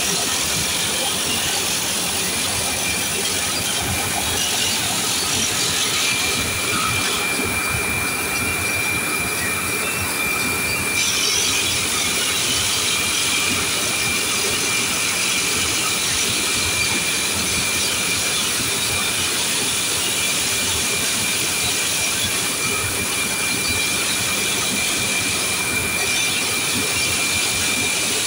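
A high-pressure water jet spraying against the perforated steel mesh of a ship's sea chest strainer to clean it, a loud steady hiss. A thin high whistle joins in about six seconds in and holds until near the end.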